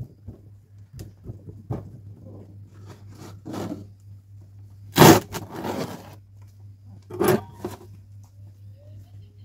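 Hands pressing and working bonsai substrate in the pot: small gritty scrapes and crunches, with two louder scraping bursts about five and seven seconds in.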